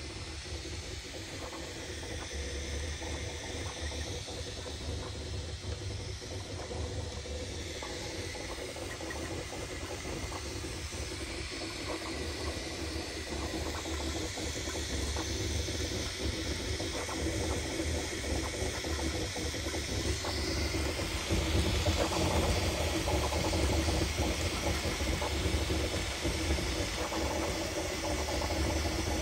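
Bambu Lab A1 3D printer running a print: a steady hissing whir with a low hum underneath. About two-thirds of the way through a rising whine comes in and it grows louder.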